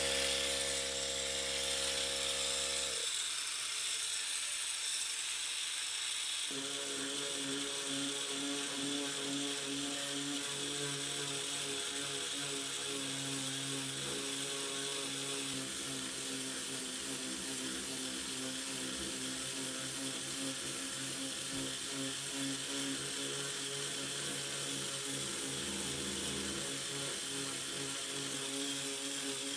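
Electric power sander running steadily against fiberglass on the RV's outer wall, a continuous motor buzz with a hissing abrasive noise.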